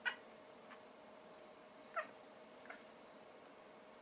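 Domestic cat making two short, high meows, one right at the start and one about two seconds later, the second falling in pitch, with fainter brief calls in between.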